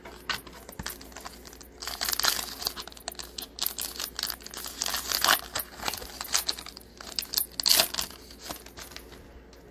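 Plastic trading-card pack wrapper being torn open and crinkled in the hands, an irregular crackling that swells around two seconds in and again near the end.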